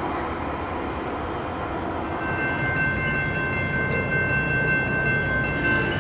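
SunRail commuter train's horn sounding one long, steady chord for about three and a half seconds, starting about two seconds in, as the train approaches a road crossing. A low rumble lies underneath throughout.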